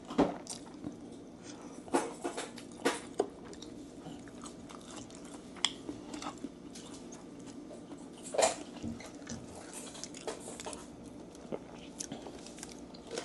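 Close-miked chewing of crispy fried chicken wing, with irregular sharp crunches every second or two, the loudest about eight seconds in.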